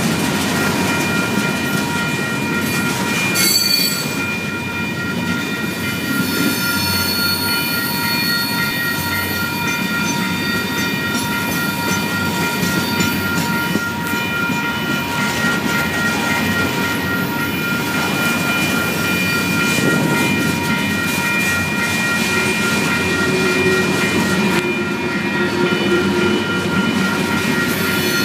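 Freight train of covered hopper cars rolling steadily past: a continuous rumble and clatter of steel wheels on rail, with thin, steady high-pitched ringing tones over it.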